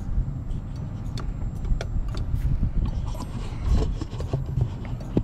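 Low rumble inside a car's cabin, with scattered light clicks and knocks.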